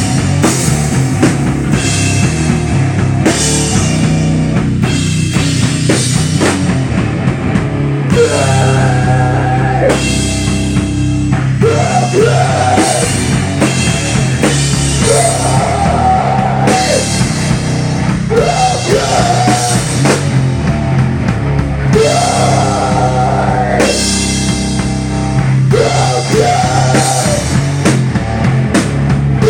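Live rock band playing loud: a drum kit, bass guitar and electric guitar. A repeating melodic line comes in about eight seconds in.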